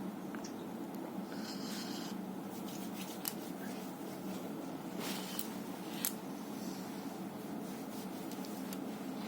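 Short scratching strokes of a marker drawing layout lines on a sheet-metal cable tray, several separate strokes, over a steady low hum.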